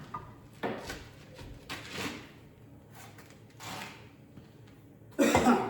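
A few short scraping and knocking noises of hands-on shop work, about four in all, with the loudest near the end.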